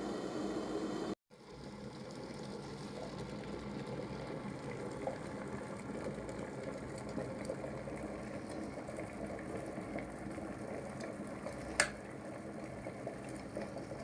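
Electric kettle heating water near the boil: a steady hiss and bubbling that cuts out briefly about a second in, then carries on, with a single sharp click near the end.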